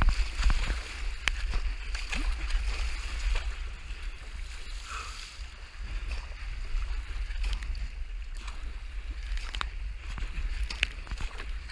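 Water rushing and splashing against a surfski hull as it is paddled through rough, choppy sea, with scattered sharp splashes from the paddle strokes and bow spray. A steady wind rumble sits on the microphone underneath.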